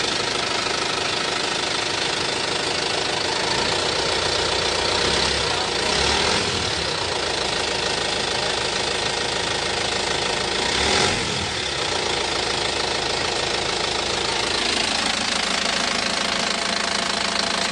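Isuzu Elf truck's diesel engine running steadily at idle just after starting.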